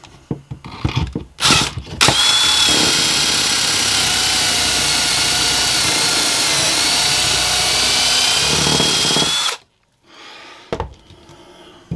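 Cordless drill boring a pocket hole into a wooden board through the guide of a pocket hole jig, running steadily with a high whine for about seven seconds and then stopping suddenly. A few short knocks come before the drill starts.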